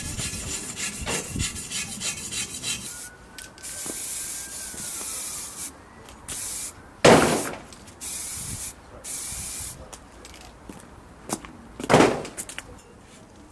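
Hand work on a machine: a few seconds of scratchy rubbing and scraping, then several short bursts of high hiss that start and stop abruptly. Two loud knocks come about seven and twelve seconds in.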